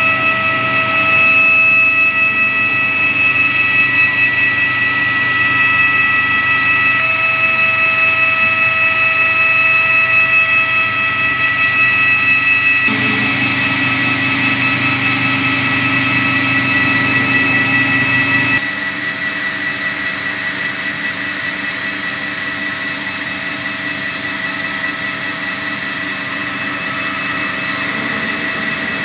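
S-SJP-170 single-stage plastic pelletizing line running. Its motors, strand pelletizer and blower give a loud steady whine of several high tones over a low hum. The mix changes abruptly twice as the sound moves to different parts of the line.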